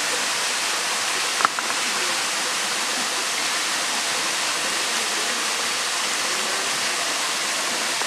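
Steady rushing of a small waterfall pouring into a rock pool, with one sharp click about a second and a half in.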